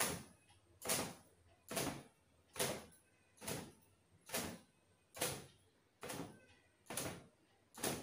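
Thin cotton gamchha towel swung and beaten against long wet hair to shake the water out: a regular swish about ten times, a little more than one a second.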